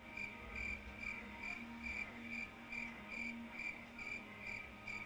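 Cricket chirping faintly in an even rhythm, a little over two chirps a second.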